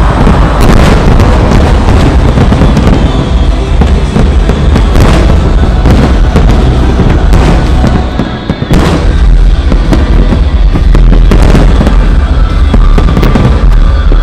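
Aerial fireworks display bursting continuously: a dense run of bangs and deep booms over a steady low rumble, very loud, with music playing along.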